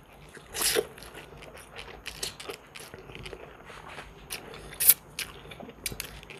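A person eating instant cup noodles. A short slurp of noodles about half a second in, then chewing with small wet mouth clicks, and sips of broth from the cup's rim in the second half.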